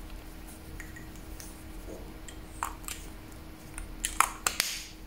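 Faint clicks and taps of a lipstick tube and its cap being handled, with a few sharp ticks near the end as the cap goes back on, over a low steady hum.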